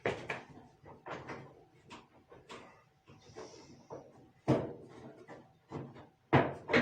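Irregular clunks and rattles of a dryer's sheet-metal front panel being worked loose from its catches, with louder knocks about four and a half seconds in and near the end.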